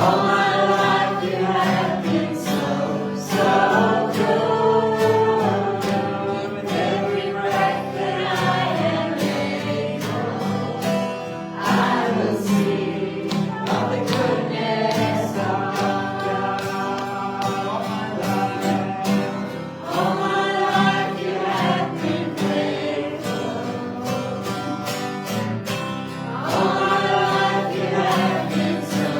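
Worship leader and congregation singing a contemporary worship song together, with instrumental accompaniment.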